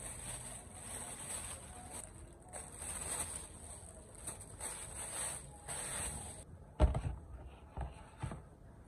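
Thin clear plastic bags rustling and crinkling as they are rubbed and pulled apart by hand. About two-thirds through, a sharp knock, followed by a few lighter knocks.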